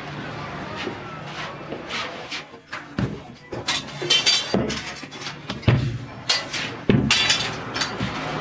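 A run of irregular knocks and thumps over a steady low hum, with the heaviest thumps about three seconds in, near the middle and about two-thirds of the way through.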